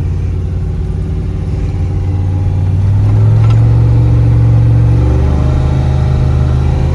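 Turbocharged LS V8 of a Chevy Silverado running through a new 4-inch turbo-back exhaust, a steady low engine note that gets louder about three seconds in as the truck pulls away.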